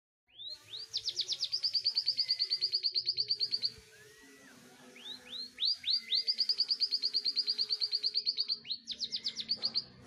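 Caged canary singing: rapid trills of repeated rising notes, about ten a second, in three phrases, the first two several seconds long with a short pause between, the third brief near the end.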